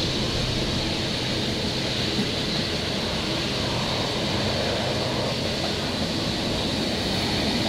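Loaded ballast hopper wagons of a freight train rolling past: a steady rumble of wheels on the rails with a constant high hiss above it.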